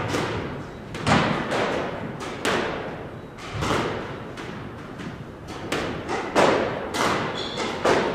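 A squash ball being hit in a drill on a squash court: sharp racket strikes and the ball hitting the walls and floor come every half second to second or so, each echoing in the court.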